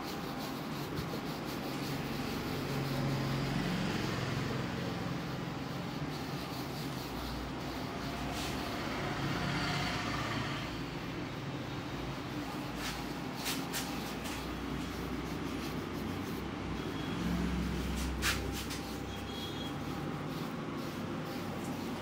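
Silicone massage brush rubbed and scrubbed over a beard and cheek, a soft steady bristly rubbing with a low rumble underneath and a few light clicks in the second half.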